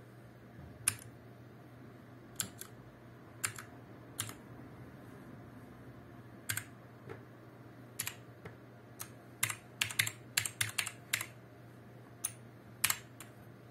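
Motospeed K87S mechanical keyboard with clicky blue switches: single keys pressed one at a time while Fn is held to cycle the backlight modes, each press a sharp click, with a quick run of presses about ten seconds in.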